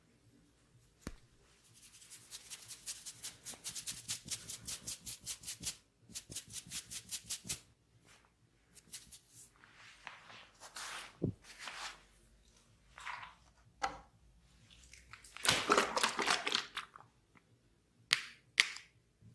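Hands massaging a person's oiled hair and scalp: fast rhythmic rubbing or patting strokes, about six a second, for the first several seconds, then slower, longer rubbing sweeps, with two sharp cracks near the end.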